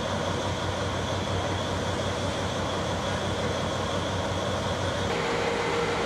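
Navy patrol boat's engine running steadily with a low hum over the rush of its churning wake. About five seconds in the sound changes abruptly and a steadier, higher hum takes over.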